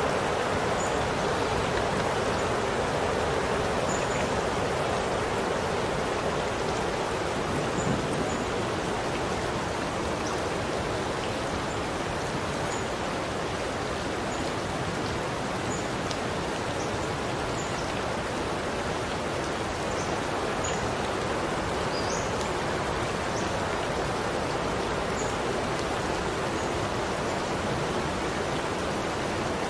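Steady rain falling, a dense even hiss with scattered faint ticks of single drops.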